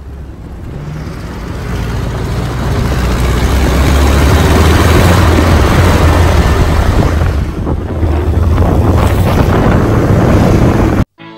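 Pickup truck driving fast on a dirt road: a steady low rumble with tyre and gravel noise and wind buffeting the microphone. It fades in over the first few seconds and cuts off suddenly near the end.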